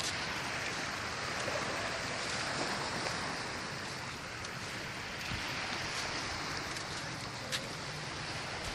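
Steady rushing noise of waves washing onto a sandy beach, mixed with wind buffeting the phone's microphone.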